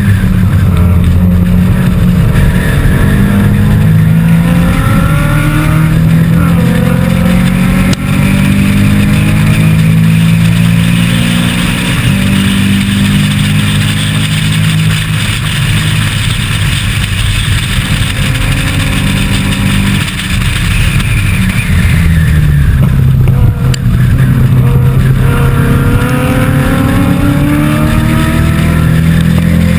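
Race car engine heard onboard at racing speed, climbing in pitch as it accelerates, with brief dips where the driver changes gear or lifts off, and rising hard again near the end.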